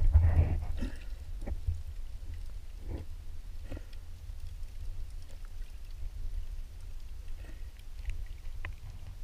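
Muffled underwater sound of water moving around a submerged camera housing: a steady low rumble with scattered faint clicks and knocks. It is louder and noisier in the first second.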